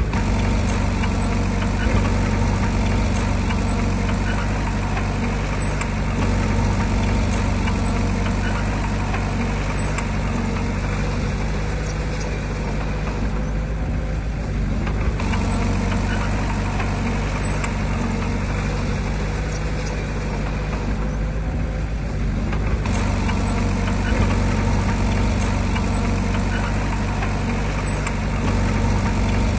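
Diesel engine of heavy earthmoving machinery, a bulldozer or dump truck, running steadily at an even speed, with a faint hiss fading briefly twice midway.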